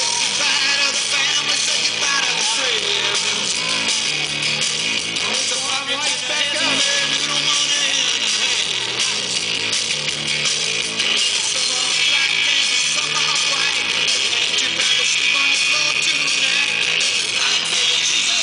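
Music playing: a rock song with guitar.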